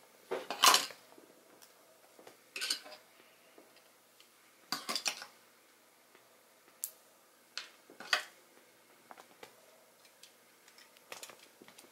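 LEGO plastic parts clicking and clacking as the Voltron model's sword and arm pieces are handled and fitted together. A handful of separate sharp clacks comes at uneven intervals, the loudest just under a second in, with lighter ticks near the end.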